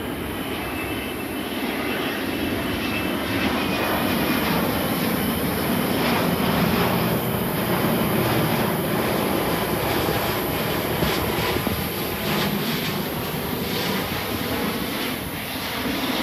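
Twin-engine jet airliner passing overhead on its landing approach: a steady rumbling rush of engine noise that grows somewhat louder midway.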